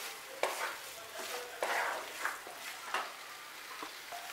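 Spatula stirring and scraping a thick banana-flower and potato mixture around a non-stick kadai, with a light sizzle of frying underneath. The scraping comes as several separate strokes.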